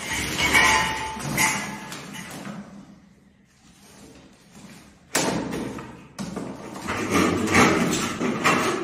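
Scrap steel drywall-profile and board offcuts clattering and knocking as they are gathered by hand and pushed into a bucket, with two sharp knocks about five and six seconds in after a brief lull.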